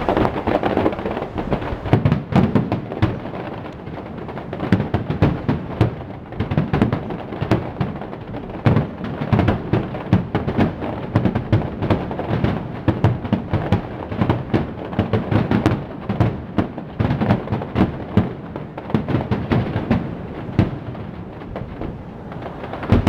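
Aerial fireworks exploding in quick succession, a dense run of sharp cracks and deep booms with a rolling low rumble between them.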